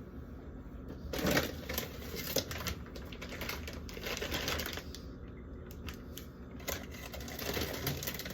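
Plastic food packaging being handled and sorted from a fridge: irregular clicking and rustling, with a few louder knocks.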